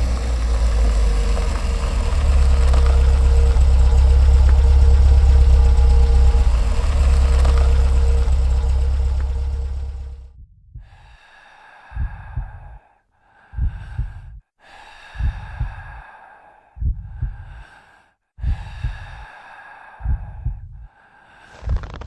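Pickup truck's engine running with a steady low rumble, fading out after about ten seconds. Then come soft short pulses, each with a low thump, about one every second and a half.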